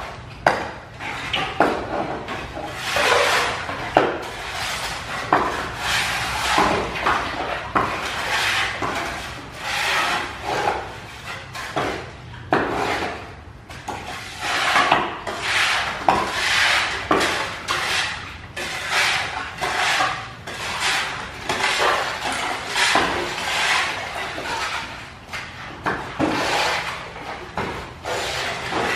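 Irregular knocks, scrapes and rubbing as muddy pots, utensils and debris are handled and sorted by hand in shallow floodwater, with water splashing.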